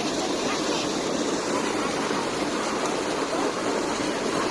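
Steady rush of water tumbling over rocks in a mountain stream.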